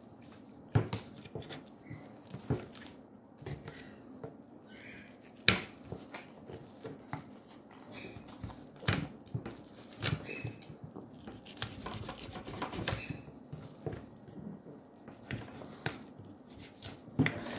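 A small kitchen knife scraping and cutting around the bone of a raw chicken thigh, with irregular sharp taps of the blade on the bone and the wooden cutting board and soft wet squelches of the meat.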